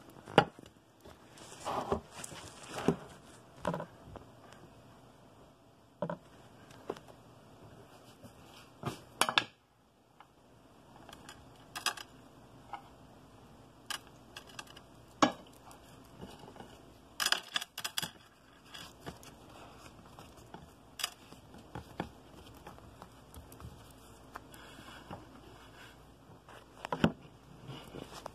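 Kitchen handling noises: irregular clinks, taps and knocks of dishes and utensils being moved about on a counter, some a few seconds apart and a quick cluster of them about seventeen seconds in.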